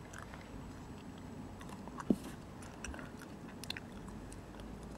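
Faint scattered small clicks close to the microphone, mouth or handling noises, with one sharper click about two seconds in.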